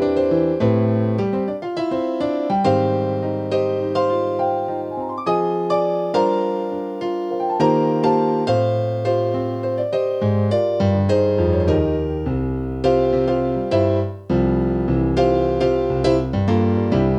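Yamaha NP-11 portable digital keyboard played with a piano voice: a melody and chords over low bass notes, each note struck and then fading, with a brief break about 14 seconds in.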